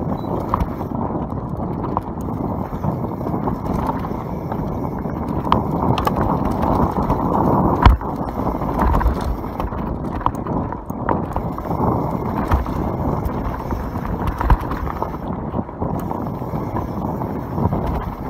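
YT Capra enduro mountain bike descending a dirt trail at speed: a steady rush of tyre and air noise on the microphone, broken by frequent knocks and rattles from the bike over bumps, with one sharp knock about eight seconds in.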